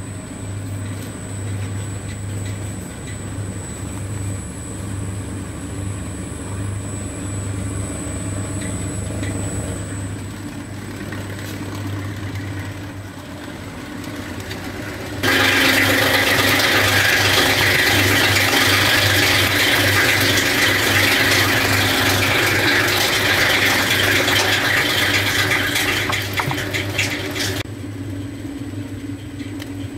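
Euro Prima S 350 herb cutting machine running steadily with a low hum. About halfway through, a much louder, rough chopping noise starts suddenly as fresh licorice root is cut, lasting about twelve seconds. Then the machine runs on empty with its steady hum.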